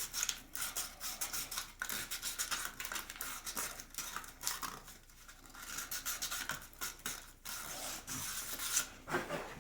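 Abrasive paper scrubbing the inside of a PVC pipe fitting in quick, irregular scratching strokes, roughing up and cleaning the plastic before it is cemented. The scrubbing eases off briefly about halfway through.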